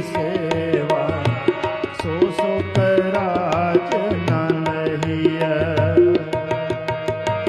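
Sikh kirtan: tabla played in a steady rhythm under two harmoniums holding the melody. A male voice sings a long, ornamented wordless line over them.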